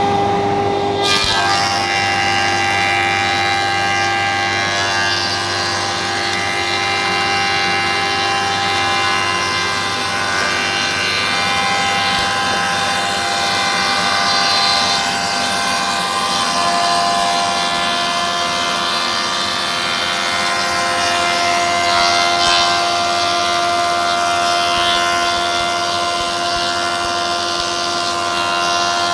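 Borovichi С25-4 four-sided planer-moulder running. Several steady tones sit over a loud, even mechanical noise.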